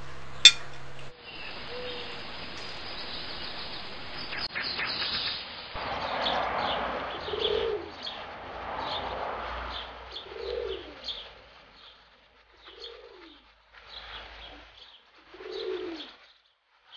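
Birds in a rural yard: pigeons cooing in low falling calls every two to three seconds, with small birds chirping high above them. A single sharp click comes about half a second in.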